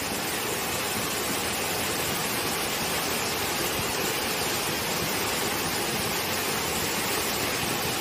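Monsoon waterfall: a steady, even rush of falling water.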